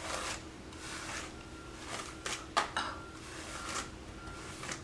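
A Wet Brush hairbrush with flexible bristles stroking through long hair, swishing about once a second. A couple of sharp clicks come about two and a half seconds in.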